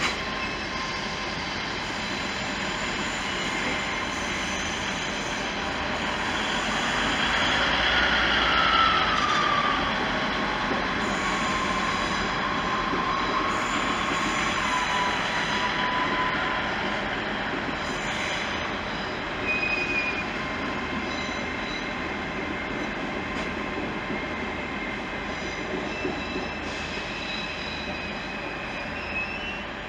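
Hitachi Azuma (Class 800/801) train arriving slowly over curved pointwork. A steady rumble of wheels on rail builds to its loudest about eight seconds in. Over it are high squeals: one slowly falls in pitch over several seconds, and a couple of shorter ones come later.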